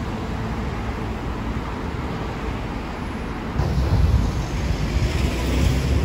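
Outdoor street ambience with a steady rumble of road traffic. About three and a half seconds in it cuts to louder, gusty wind buffeting the microphone.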